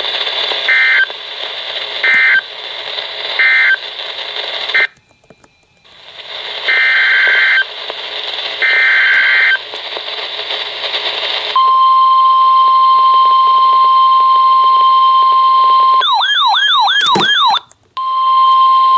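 NOAA Weather Radio alert sequence received with static hiss: a few short SAME data bursts, a brief dropout, two longer data-burst headers, then the long steady 1050 Hz warning alarm tone. Near the end the alarm tone is broken by under two seconds of warbling tones and a click, then it resumes.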